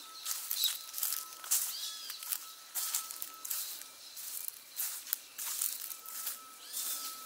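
Footsteps of a person walking on a park path, short scuffing steps about two a second. A bird gives a short curling call twice in the background.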